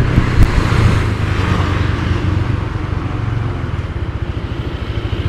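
Motorbike engine running with wind and road noise while riding. In the last couple of seconds the engine settles to a low, fast-pulsing note as the bike pulls up to stop.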